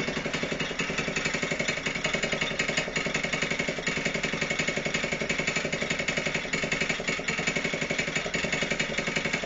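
Mini quad's small overhead-cam engine idling steadily while it warms up after a cold start; it stalls if given throttle before it is warm. The muffler is really rattly.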